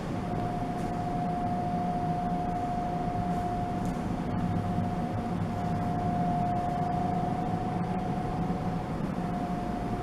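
Steady machine-like drone: a low hum under hiss with one constant, fairly high-pitched tone held throughout.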